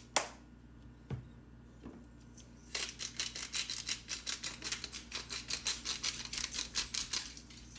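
Hand spice grinder being twisted over a frying pan: a fast run of crisp grinding clicks, about six a second, lasting some four and a half seconds. Before it, a sharp click as the gas stove's burner knob is turned.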